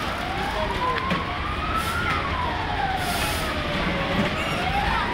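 A siren wailing slowly up and down, rising for about two seconds and falling for about two, over a steady din of background noise.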